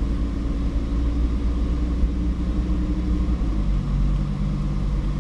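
Lamborghini Huracán's V10 engine running at low revs, heard from inside the cabin, as the car pulls away slowly. Its note steps down to a lower pitch about three and a half seconds in.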